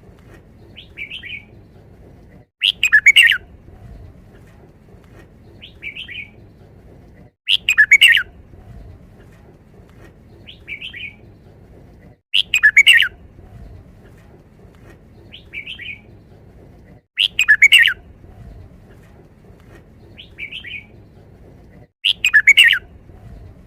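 Red-whiskered bulbul singing its five-syllable wild-type song phrase over and over, about every five seconds, each loud phrase followed about two seconds later by a short, quieter call.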